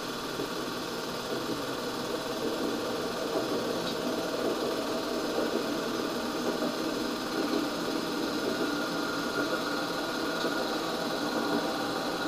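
8mm film projector running during home telecine: a steady mechanical whirr and clatter that holds even throughout.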